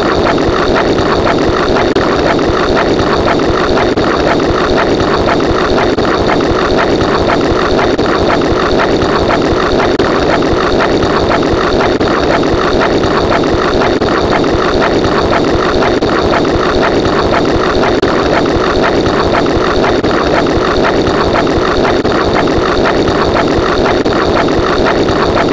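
A loud, steady motor-like running sound with a fast, even rattle, unchanging throughout.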